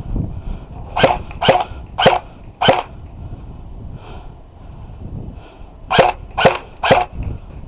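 Airsoft gun fired in single shots: four sharp pops about half a second apart, then a pause and three more.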